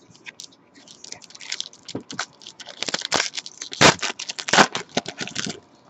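Foil wrapper of a Panini Select football card pack crinkling and crackling as it is ripped open by hand, with the loudest crunches about three to four and a half seconds in.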